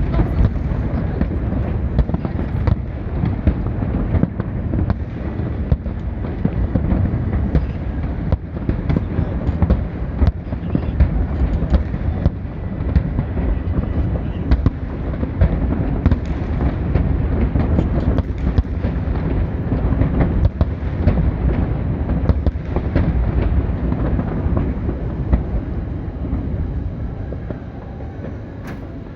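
Fireworks bursting in quick succession: many sharp bangs and crackles over a continuous low rumble. The barrage eases and grows quieter over the last few seconds.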